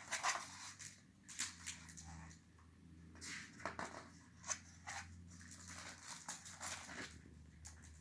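Soft, irregular rustling and handling noises of a picture book being opened and its pages turned, over a faint steady low hum.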